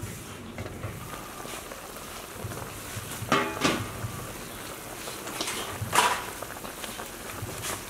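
A large pot of vegetable soup boiling over a wood fire, with a steady bubbling hiss. A ringing metal clank about three seconds in as the aluminium lid comes off, and another sharp clank near six seconds.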